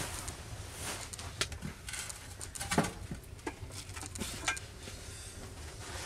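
Steak sizzling in an oiled frying pan on a wood stove, with scattered sharp pops of spattering fat over a low steady rumble.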